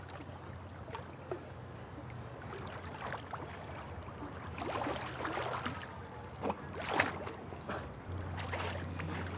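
Swimming-pool water splashing and lapping, with louder splashes about five and seven seconds in, over a steady low hum.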